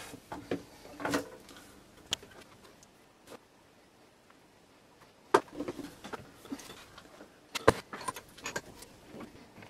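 Small side cutters snipping thin wires: a few sharp clicks, two of them louder, about halfway through and again a couple of seconds later, with the rustle of wires being handled between them.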